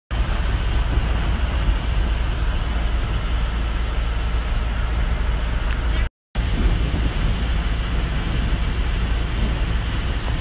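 Small passenger boat under way on open water: a steady low rumble from its motor with a rushing noise over it. The sound breaks off for a moment about six seconds in.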